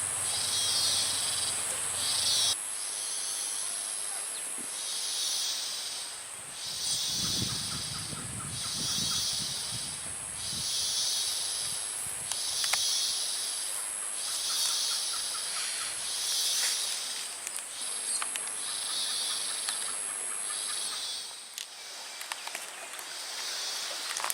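Night-time-style chorus of tropical insects: a steady high-pitched whine with a hissy, pulsing call repeating about every second and a half, and faint rapid trills in between.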